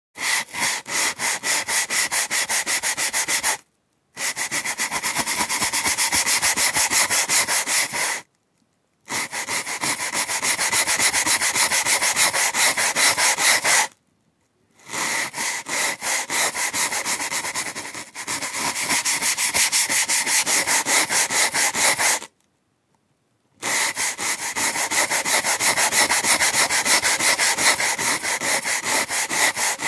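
A scrubbing brush scrubbed hard back and forth, about five strokes a second, in spells of a few seconds with short pauses between them.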